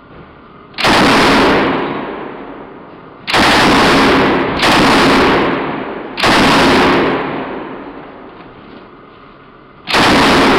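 Negev 7.62 mm light machine gun firing short bursts of automatic fire: four bursts, each ringing off in a long echo, and a fifth starting near the end.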